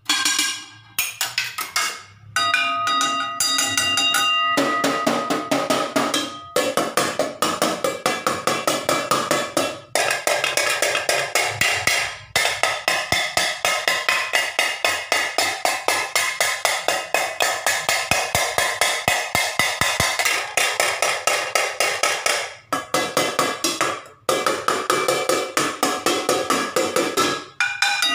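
Kitchen pots, pans and plates struck rapidly and repeatedly, several hits a second, each leaving a metallic ringing. The run of strikes starts suddenly and pauses briefly a few times.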